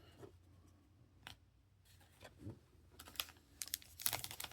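Light clicks and taps of chromium trading cards being handled and set down, a few scattered at first, then coming thick and fast near the end.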